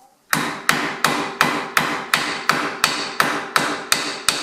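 Hammer blows struck at a steady pace, about three a second, each with a short metallic ring, driving the Jeep Cherokee's front steering knuckle down along the strut into its new lifted position. The blows start just after the beginning.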